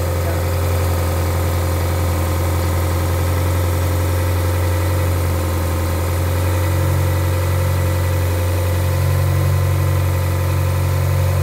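Freshly rebuilt Toyota 2E 1.3 L four-cylinder engine idling steadily. It is held up at about 1300 rpm while still cold, and its ignition timing is a little retarded. The low hum grows slightly stronger about seven seconds in.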